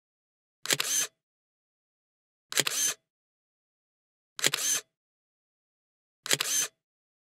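Camera shutter sound effect, heard four times at even spacing about two seconds apart, each a quick double click with a short tail, with dead silence between.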